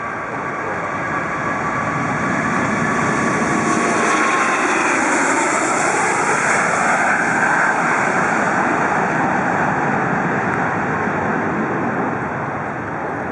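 Airbus A380's four Engine Alliance GP7200 turbofans at takeoff power: a broad jet roar that swells as the aircraft rolls and lifts off, then eases slightly as it climbs away. In the first few seconds a faint whine glides down in pitch.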